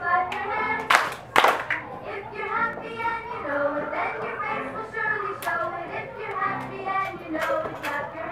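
A song with singing plays for a musical-chairs game, with two sharp claps about a second in.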